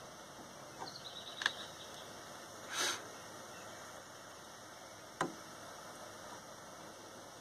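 Handheld gas torch burning with a steady low hiss while heating a copper pipe joint for soldering. A few light clicks and a brief louder rustle about three seconds in break the hiss.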